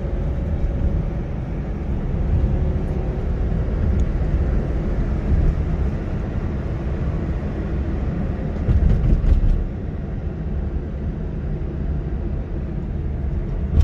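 Road and engine noise heard from inside a moving car's cabin: a steady low rumble, briefly louder about nine seconds in.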